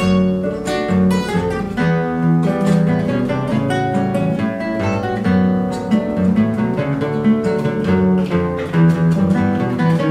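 A six-string and a seven-string violão (Brazilian acoustic guitars) playing a choro duet: a continuous, quick run of plucked notes over a steady bass line.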